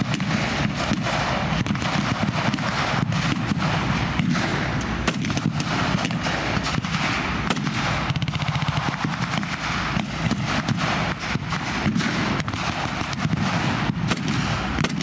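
World War II reenactment gunfire from rifles and machine guns firing blanks: many sharp shots at irregular intervals, some in quick runs, over a constant low rumble.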